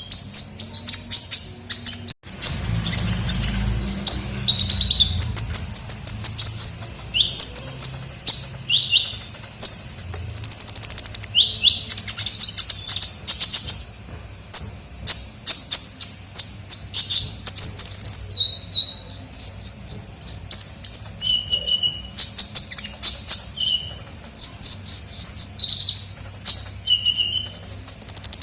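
Sunbird song of the kind Indonesian keepers call 'kolibri ninja': fast, high, twittering chirps and short sharp notes, broken by a few held, thin whistled notes.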